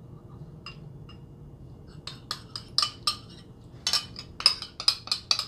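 Metal spoon clinking against a small ceramic bowl as melted butter is scraped out of it into a bowl of semolina. A couple of light taps come first, then from about two seconds in a quick run of sharp clinks, about four a second.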